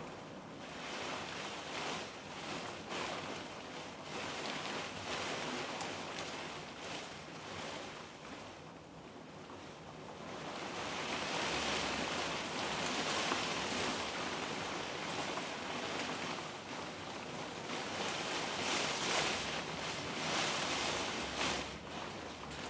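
Heavy downpour and gusting wind from a thunderstorm squall line, a steady rushing that swells louder about halfway through.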